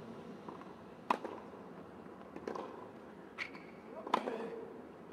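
Tennis ball struck with a racket and bouncing on a hard court during a rally: four sharp pops in about three seconds, the loudest about a second in and another near the end.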